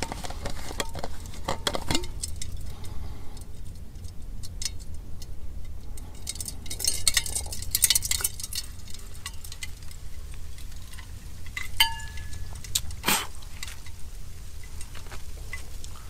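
Metal camping cookware and gear clinking and knocking in irregular light clicks, with one short metallic ring about twelve seconds in.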